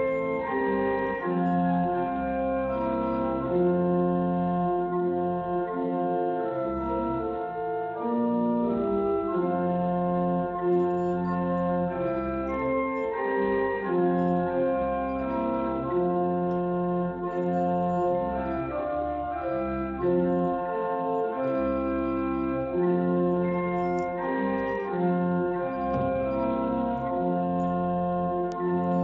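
Organ playing slow, sustained chords that change every second or two: the prelude before the service begins.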